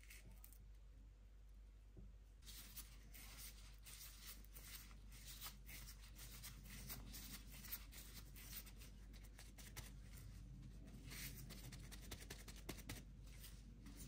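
Faint crinkling and rustling of disposable plastic gloves as hands roll and press a soft ball of cottage cheese dough: a quick, irregular patter of small scratchy sounds that starts about two seconds in, over a steady low hum.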